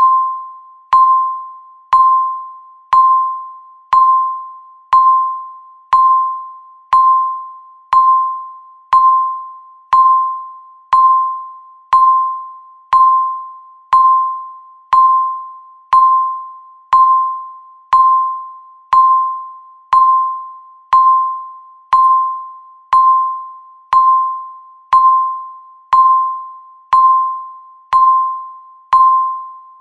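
Electronic countdown-timer beep sounding once a second, each beep a single clear tone that starts sharply and fades away before the next, ticking off the seconds of the countdown.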